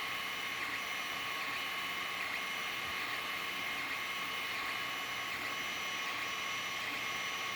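Creality Ender-3 3D printer running a print: its motors give a steady whine in a few held tones, the highest one cutting in and out as the head moves, over a constant hiss.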